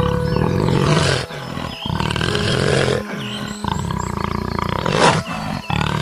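Leopard roaring: several low, rough growling roars in a row, broken by short pauses.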